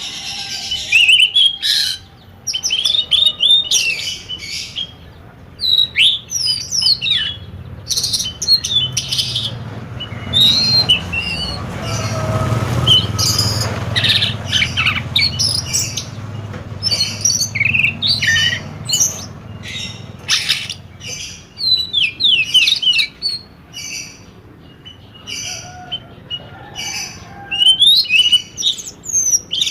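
Many small birds chirping and trilling in quick, overlapping calls, with a low rumble that swells through the middle and then fades.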